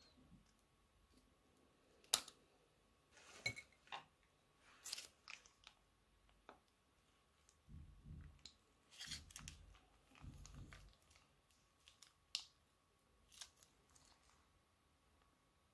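Faint, scattered crinkles and clicks of a plastic piping bag being squeezed in the hand. Twice there is a longer soft, low squelch as the clear slime glue is pressed out into a glass bowl.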